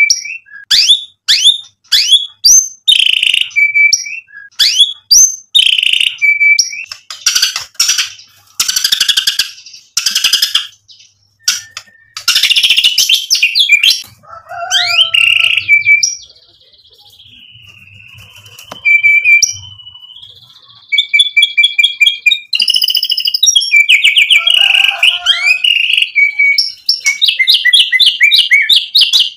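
White-rumped shama (murai batu) singing a long, varied song: repeated quick rising whistled notes, then harsh chattering bursts, a long held whistle about halfway through, and fast rattling trills near the end. The song is a string of mimicked phrases ('isian').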